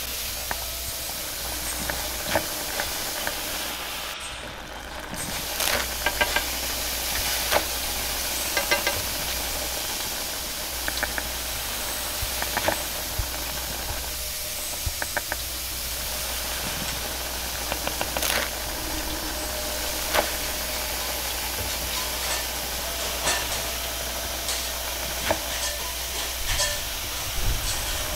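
Egg and noodles stir-fried in a wok over a gas burner: a steady hiss of the flame and frying, with the metal spatula clicking and scraping against the wok many times.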